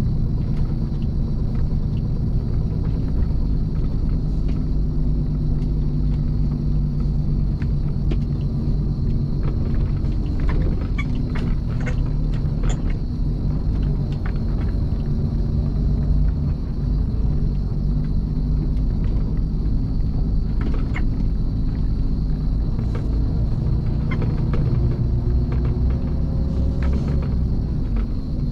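Mercedes-Benz Actros truck's diesel engine running steadily under way, heard from inside the cab on a rough gravel quarry track. Scattered clicks and rattles, most of them near the middle.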